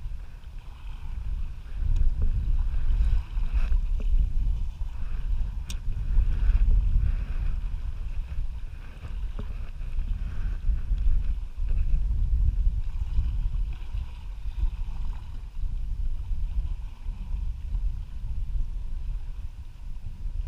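Wind buffeting the microphone: a low rumbling noise that swells and fades in gusts.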